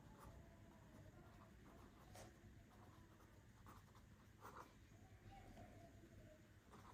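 Faint scratching of a pen writing on a notepad, in short, irregular strokes.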